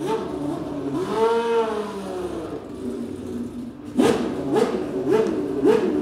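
Toyota TS010 Group C race car's naturally aspirated V10 warming up: one slow rev about a second in, then, from about four seconds in, sharp throttle blips about twice a second.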